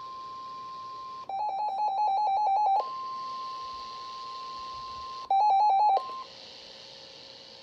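NOAA Weather Radio 1050 Hz warning alarm tone holding steady, the signal that a warning is being broadcast. It is broken twice by louder, rapid electronic alarm beeping, about seven beeps a second. The tone cuts off about six seconds in, leaving a faint low hum.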